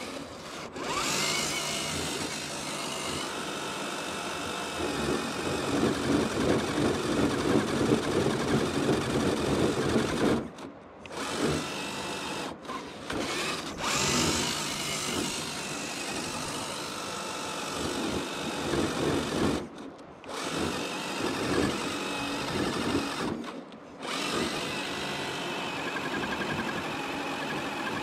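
Electric motor and geared drivetrain of an Axial SCX10 III RC crawler whining as it crawls through loose sand, cutting out briefly several times as the throttle is let off.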